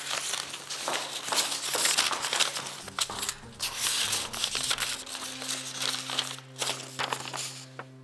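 Paper rustling and crinkling in quick, irregular crackles as a letter is opened and handled.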